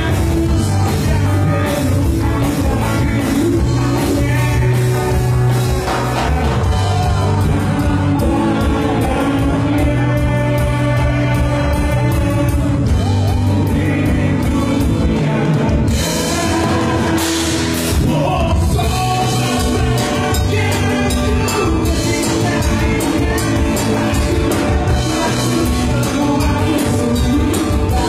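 A live rock band playing with a male singer, electric guitars and drums. About two-thirds of the way through, the deep bass drops out for a couple of seconds while the top end gets brighter, then the full band comes back.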